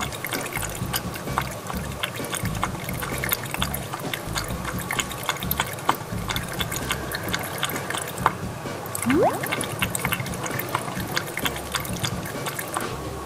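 Domestic cat lapping water from a ceramic bowl: rapid wet laps in a rhythm, with a swallow about once every three laps. A short rising tone sounds once, about nine seconds in.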